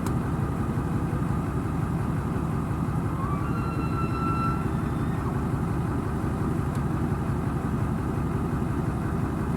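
Vehicle engine idling steadily. A faint high whistle rises briefly and then holds for about a second, a few seconds in.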